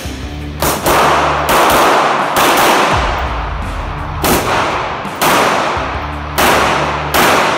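A string of handgun shots in an indoor shooting range, about seven loud cracks roughly a second apart, each followed by a long echo. Background music with steady bass notes plays underneath.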